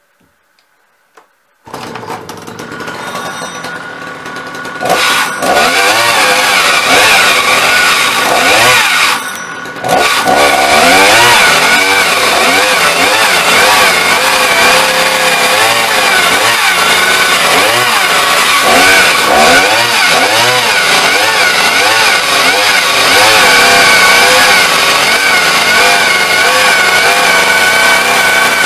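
Two-stroke chainsaw catching about two seconds in after a pull start, revving, then cutting through a log, its engine pitch rising and sagging over and over as the chain bites into the wood.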